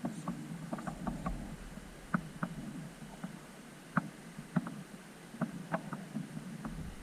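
Radio-controlled scale rock crawler working its way over rocks: irregular sharp clicks and knocks over a low rumble.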